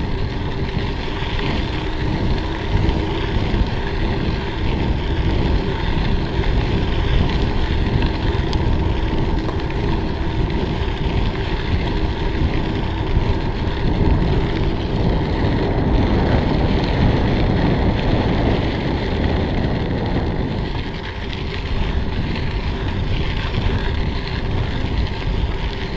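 Steady wind buffeting on the microphone of a bicycle-mounted camera while riding, mixed with the rumble of the tyres rolling over the trail surface.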